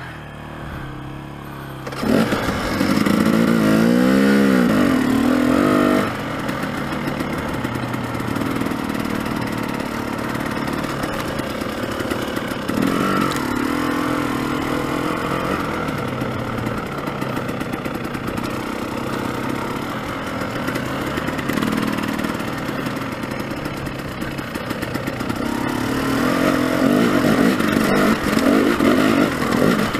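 Dirt bike engine revving up suddenly about two seconds in and pulling away, its pitch rising and falling for a few seconds, then running steadily under way and getting louder again near the end.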